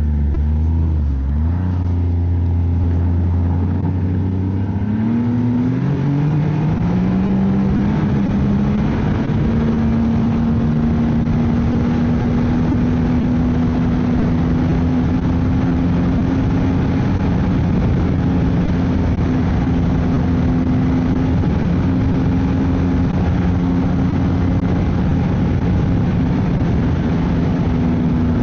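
Ski-Doo snowmobile engine running at low speed, then rising in pitch as the sled accelerates about five seconds in, and settling into a steady higher note at cruising speed.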